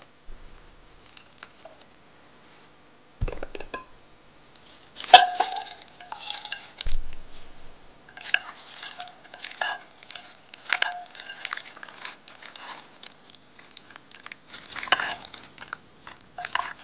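Raw shrimp being tossed in thick chili seasoning sauce in a glass bowl with two silicone spatulas: irregular wet squelching and slapping, with a dull thump about three seconds in and a sharp knock about five seconds in.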